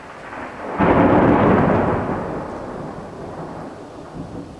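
Thunder: a rumble swells, breaks into a sudden loud crack about a second in, then rolls and dies away over the next few seconds.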